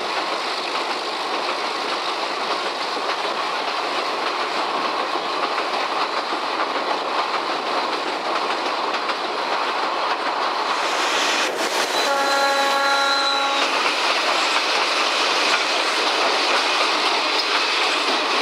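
An OSE class A.201 Alco RS-8 diesel locomotive hauling a train, heard from a carriage window: steady running noise of the train, with one horn blast of about a second and a half about twelve seconds in.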